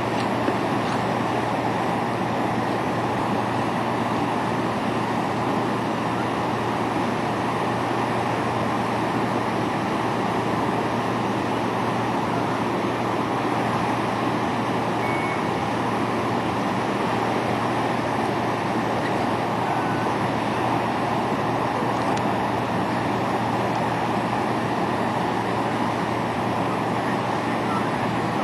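Steady vehicle running noise: a constant low engine hum under an even rushing noise.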